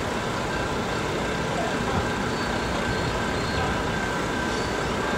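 Steady background noise of distant road traffic, with a faint steady high whine throughout.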